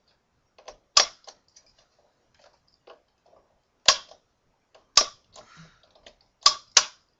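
Plastic latches of an Xbox 360 case clicking as a small flathead screwdriver is pushed through the rear slots to pop them loose: about five sharp snaps, with fainter ticks of the tool against the plastic in between.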